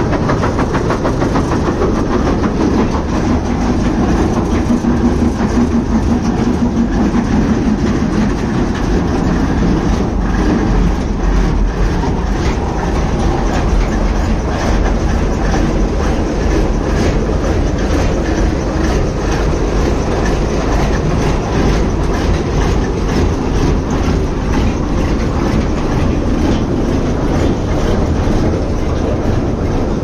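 Heavy machinery running loudly and steadily: a deep rumble with a fast, dense rattling clatter. The clatter becomes more distinct about a third of the way in.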